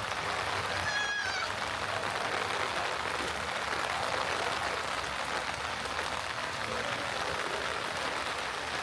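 Heavy rain falling steadily on the street, an even hiss. About a second in comes one short, high-pitched squeak.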